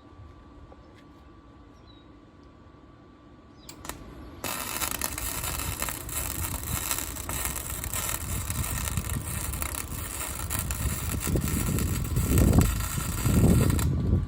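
Flux-core wire-feed welder arc crackling and sizzling steadily for about nine seconds, starting after a short click about a third of the way in and cutting off just before the end, with a low rumble swelling in the last few seconds of the weld.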